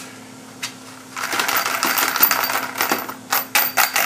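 Brass cartridge cases rattling and clinking in a round sifter as it is shaken to separate them from ground corn cob tumbling media. After about a second of near quiet, a dense rattle starts, breaking up near the end into quick sharp clinks, about five a second.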